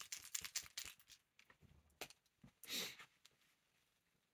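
Faint quick clicking from a capped water-based paint marker being shaken, for about the first second, then a few single clicks and a short breathy hiss near the end.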